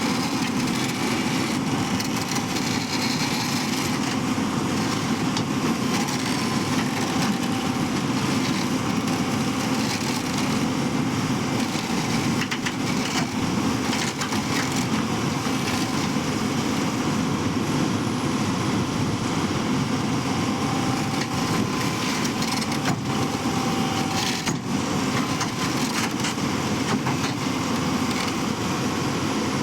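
Hyundai excavator working, its diesel engine running steadily under a dense crackling and crunching noise, with a few sharp clicks.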